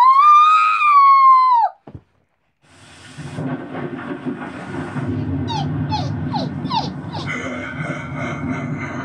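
Halloween sound-effects recording: a loud, long howling cry that rises and then falls in pitch, cutting off after about two seconds. After a brief silence, another effect starts: a low rumbling din with a string of quick, falling squeaks and cries over it.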